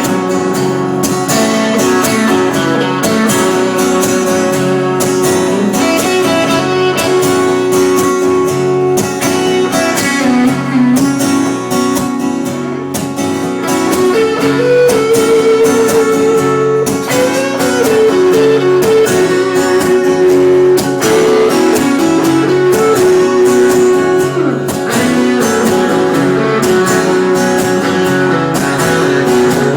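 Guitar playing an instrumental blues passage with a steady strummed rhythm, with no singing.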